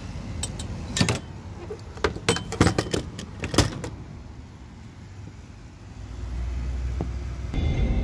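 Sharp metallic clicks and clatter from a gas-pump fuel nozzle being handled at a car's filler neck, several in quick succession over the first few seconds. About six seconds in, a low steady rumble sets in.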